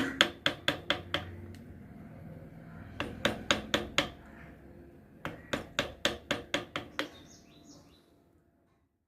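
Mallet tapping a wood-carving chisel in three quick runs of sharp taps, about five a second, with short pauses between the runs.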